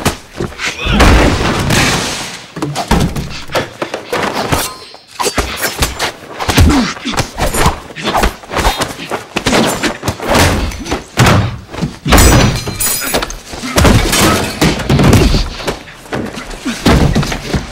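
Hand-to-hand fight sound effects: a rapid, dense run of punch and body-impact thuds and thunks, with grunts and a crash about twelve seconds in.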